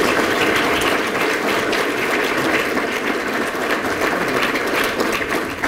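Audience applauding, a dense steady clapping that begins the moment the speech ends and starts to fade near the end.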